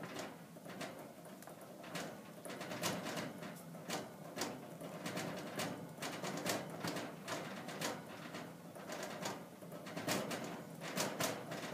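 Guinea pig at the wire bars of its cage, making a low, continuous vocal rumble, with irregular sharp clicks and rattles from the bars as it pushes and gnaws at them to get out.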